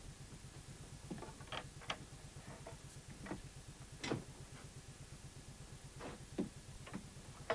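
Scattered light knocks and clicks of someone handling things in a wooden room, a few spread out over several seconds, with the loudest about four seconds in. A steady low hum runs underneath.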